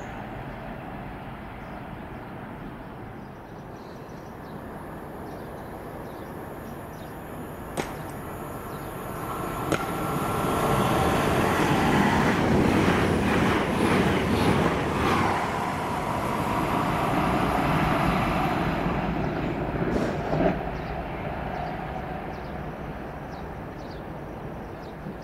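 A train passing along the line, its rail and wheel noise building about a third of the way in, staying loud through the middle and fading toward the end, with a few sharp clicks as it goes by.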